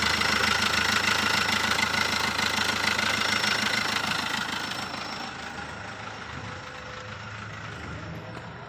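Chevrolet Spin's 1.3-litre four-cylinder diesel engine idling with an even knock, just after an overhaul and pushing its coolant up in the radiator. The sound fades much quieter about five seconds in.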